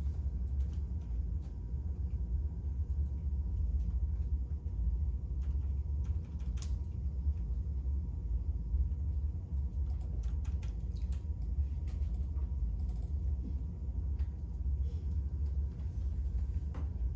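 Steady low rumble of room background noise, with scattered faint clicks and taps throughout.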